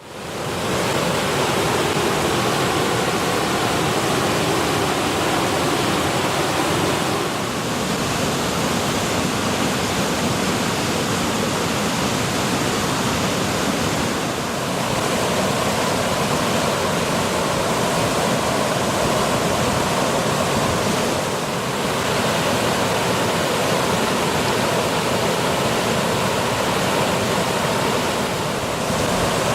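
Short multi-tiered waterfall cascading over rock: a steady, full-range rush of water that fades in at the start and changes slightly about every seven seconds.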